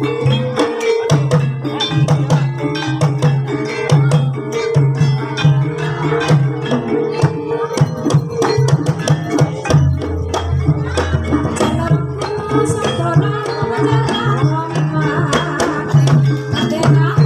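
Live Javanese gamelan music accompanying an ebeg hobby-horse trance dance: rapid hand-drum strokes over sustained, ringing tuned metal tones.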